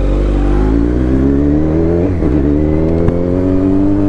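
Kawasaki Z900 inline-four engine with an Akrapovic exhaust, accelerating under way: its pitch climbs steadily, dips briefly about two seconds in, then climbs again.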